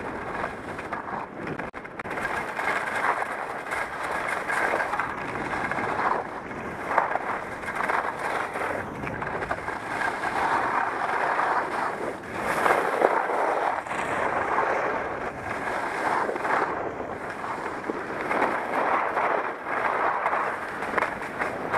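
Ski or snowboard edges scraping and hissing over firm, hard-packed snow on a downhill run, swelling and easing with each turn.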